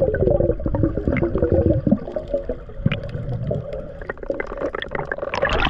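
Underwater sound picked up by a camera held below the surface: muffled water movement with many small crackling clicks and a steady, wavering hum.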